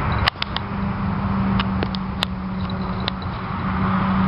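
Steady low motor hum over a low rumble, like an engine or passing traffic, broken by a few short sharp clicks and squeaks.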